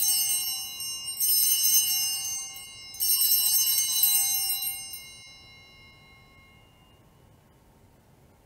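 Altar bells (Sanctus bells) rung three times at the elevation of the chalice after the consecration. The strikes fall about a second, then two seconds apart, and the last one rings out and fades over several seconds.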